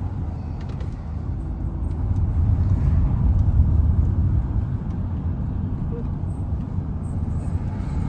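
Low, steady rumble of a moving vehicle, swelling slightly a couple of seconds in.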